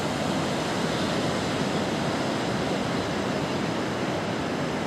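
Pacific surf breaking on a sandy beach, a steady, even wash of waves.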